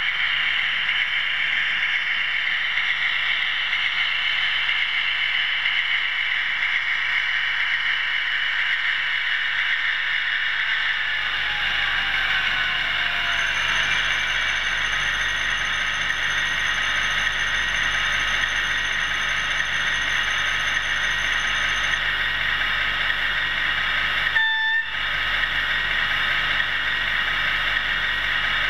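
Steady mechanical whir and hiss of OO-gauge DCC model trains running on the layout, with a short tone about 25 seconds in.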